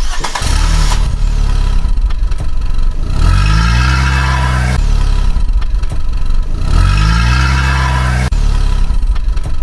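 Engine running and revving up twice, the pitch rising with each rev. The two revs are identical, which suggests a repeated engine sound effect rather than a live engine.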